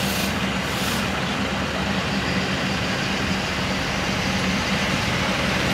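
Komatsu tracked excavator's diesel engine running steadily, a low even hum.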